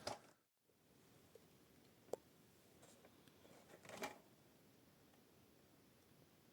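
Near silence: room tone, with one faint click about two seconds in and a soft brief rustle about four seconds in.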